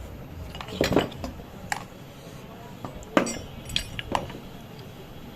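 Sharp metal clinks of a spanner on the nuts of a water pump's casing as they are tightened: a cluster about a second in, one near two seconds, and a run of several between three and four seconds.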